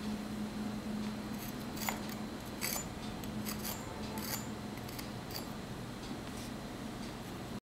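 Crisp air-fried wheat-flour samosa crust cracking and crumbling as it is broken open by hand: a run of small sharp crackles for a few seconds in the middle, over a low steady hum.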